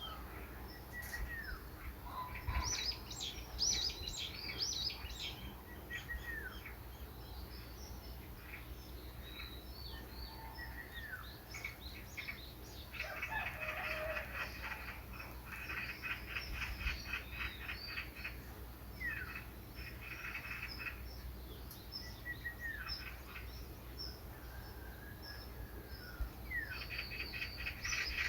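Several wild birds singing and calling: short high chirps, downward-slurred whistles, and a rapid trill that runs for several seconds near the middle and comes back near the end. A low steady hum lies underneath.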